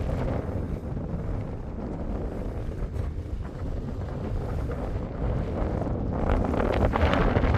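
Wind buffeting the microphone, a low rumble that gets louder and gustier near the end.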